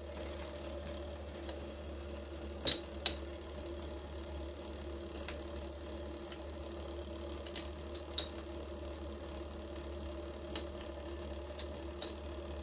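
Mini milling machine's motor running with a steady hum, and a few sharp clicks as the table is cranked over to the next drilling position.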